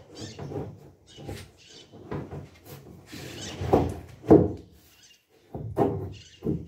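Irregular knocks, thumps and rubbing from curved plastic barrel panels being pressed and handled on a boat hull. The two loudest thuds come about four seconds in.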